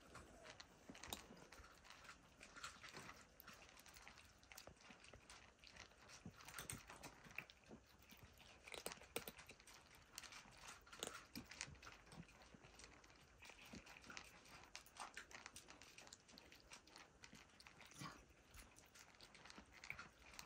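Faint crunching of cats chewing dry kibble, with irregular small clicks and crackles from several eaters at once.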